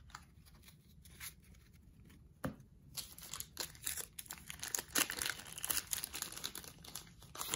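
A 1990 Fleer baseball card pack's wrapper being torn open and crinkled by hand. After a quieter first few seconds with a few soft clicks, there is dense, crackly tearing and crinkling of the wrapper from about three seconds in.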